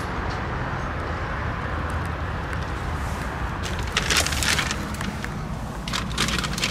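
A small car engine idling steadily with the driver's door open, with rustling and scuffing twice, about four and six seconds in, as a person climbs into the driver's seat.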